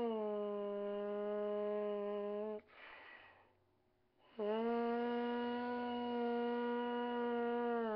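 Lips buzzing into a Schilke Symphony D5.3 trombone mouthpiece in a semitone-step warm-up. A held buzzed note slides down about a semitone and holds, breaks off about two and a half seconds in for a quick breath, then the same lower note is buzzed and held again.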